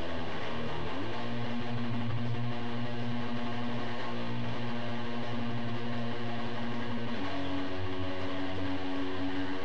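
Electric guitar playing long held notes, sliding up to a new note about a second in and moving to a higher held note about seven seconds in.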